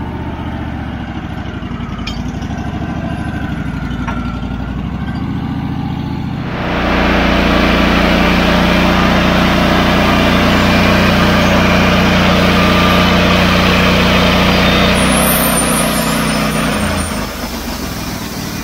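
Portable sawmill's engine running steadily, then about six and a half seconds in it comes up to speed with the saw blade engaged and running, much louder with a wide hissing noise over the engine. It holds steady for about ten seconds, then drops back near the end.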